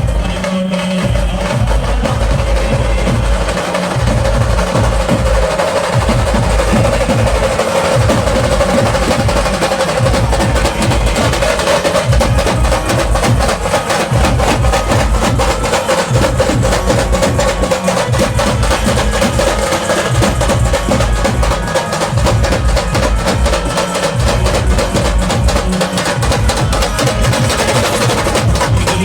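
Procession band playing a song: a held melody line over fast, dense drumming with heavy bass drum.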